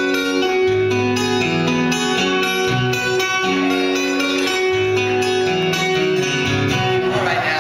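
Guitars played live through a PA: a short passage of sustained chords, the low note changing about every half second.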